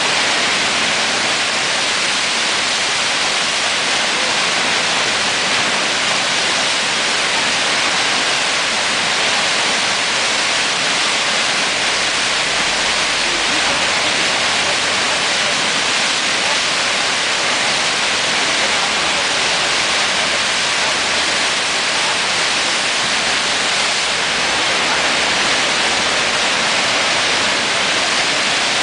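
Whitewater rushing steadily through the Eisbach's standing river surf wave, a loud, even hiss of churning water with no break.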